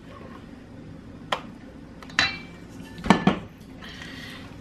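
Stainless steel mixing bowls and a silicone spatula clanking as whipped cream is scraped out: a few sharp knocks, one with a short metallic ring about two seconds in, and two louder knocks close together just after three seconds, then a brief scrape.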